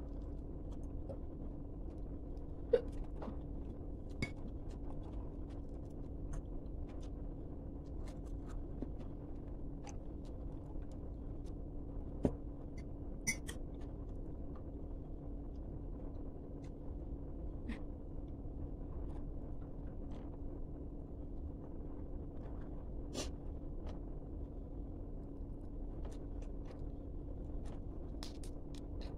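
Eating sounds: scattered crunches and clicks as crispy fried chicken skin is bitten and chewed, with an occasional clink of a spoon against a bowl, two sharper knocks standing out, all over a steady low hum.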